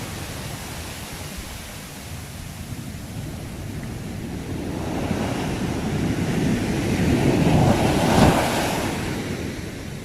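Sea waves: the surf noise swells from about halfway through to a peak near eight seconds, then dies back down.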